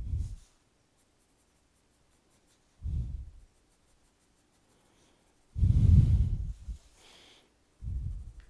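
Graphite pencil scratching on drawing paper in four short bursts of strokes. A loose sheet of paper is handled and laid over the drawing near the middle, the loudest and longest of the sounds.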